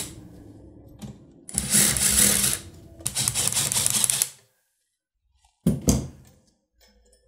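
Cordless power tool running in two bursts of about a second each, then two brief blips, backing out the 10 mm cylinder head bolts on a Briggs & Stratton EX550 engine.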